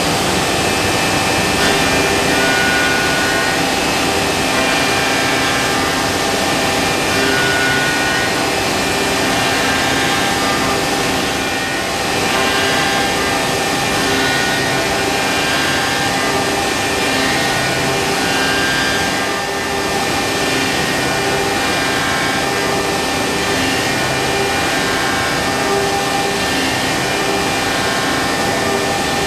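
Busellato Jet Optima C21 CNC woodworking machining centre running steadily while machining a wooden interior door. Its steady whine carries higher tones that come and go every few seconds.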